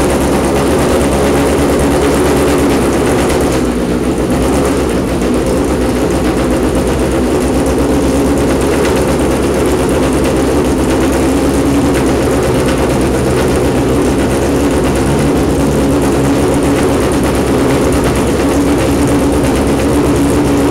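Engine of the NISMO 350Z Super GT GT500 race car, a V8, running loud and steady through its race exhaust while warming up just after starting. It dips slightly about four seconds in.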